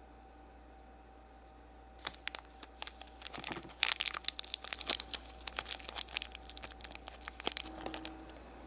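Small plastic toy packaging being handled, crinkled and torn open, a dense irregular crackling that starts about two seconds in and stops shortly before the end.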